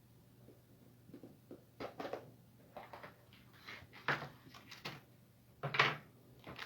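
Handling noise of the One Chip Challenge packaging being picked up and turned over: an irregular series of short scuffs and knocks, the loudest about four and six seconds in.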